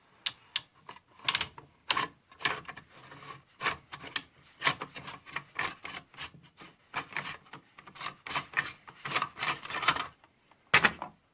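Hands turning the tool-free bar-tightening knob and working the side cover plate of a Brücke battery chainsaw: irregular clicks and scraping rubs, with a sharp click near the end. The knob is not clamping the cover plate, which stays loose.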